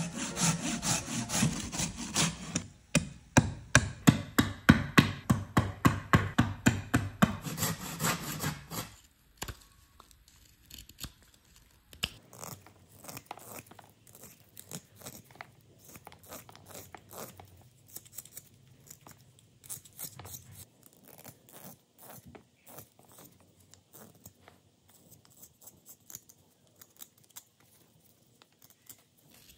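A wooden branch sawn by hand, with loud, even back-and-forth strokes, about two or three a second, for roughly the first nine seconds. After that a small carving knife whittles the green wood in short, scattered cuts and scrapes, much quieter.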